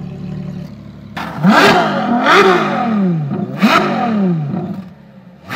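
Ferrari 488 Spider's twin-turbo V8 idling, then blipped three times in quick succession from about a second in. Each rev climbs fast and falls back toward idle.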